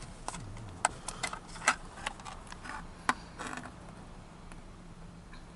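A plastic milkshake cup and lid being handled: a string of sharp, irregular clicks and taps, with a short rustle about three and a half seconds in, then it goes quiet.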